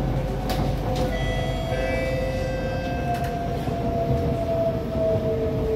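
Cabin of a Kawasaki-Sifang C151B metro train in motion: a steady rumble of wheels on track, with the traction motors whining in two steady tones that slowly fall in pitch as the train slows. About two seconds in, a few higher whistling tones sound briefly.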